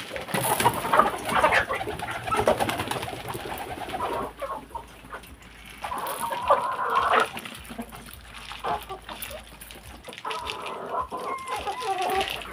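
A flock of chickens clucking in irregular bouts as they crowd around and peck at scattered grain, with a pigeon cooing among them.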